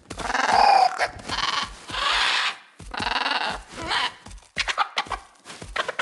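A run of about six short bleating calls, each under a second, with clicks in between, laid on as the calls of dodos.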